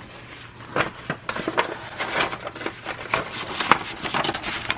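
Paper rustling and crinkling as sheets and a paper envelope are handled, with irregular small taps and scrapes throughout.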